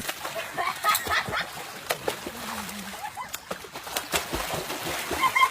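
Birds calling: a scatter of short, pitched calls over a noisy background, with a quick run of calls near the end.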